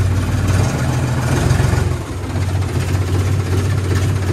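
John Deere tractor's diesel engine idling steadily, just started after standing for 10–15 days, with a brief dip in level about two seconds in.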